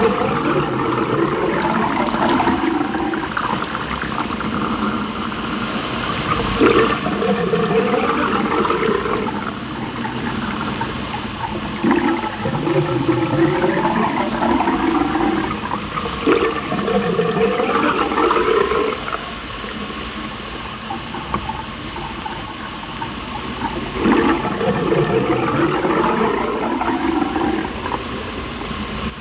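Baking soda volcano erupting, cartoon-style: a continuous fizzing hiss with bubbling, gurgling surges that swell and fall back in repeated waves every few seconds.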